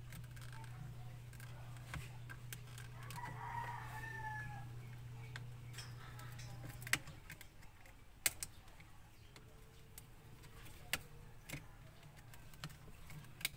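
Sharp plastic clicks and knocks, a second or more apart, as the Honda Civic's broken handbrake handle cover is worked off the lever by hand. A rooster crows faintly in the background about three seconds in, and a low steady hum cuts out about halfway through.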